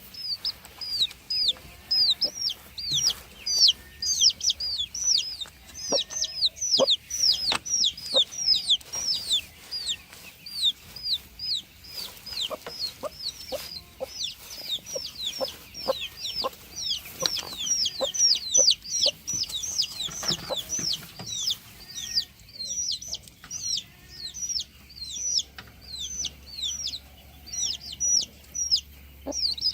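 A flock of broiler chickens peeping and clucking without a break: many short, high calls sliding downward, several a second, with scattered soft taps underneath.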